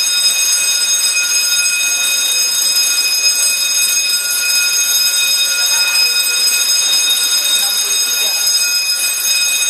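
Fire alarm sounder of a PLC-controlled fire alarm system going off with a loud, steady, continuous high-pitched tone, set off by a detector under test.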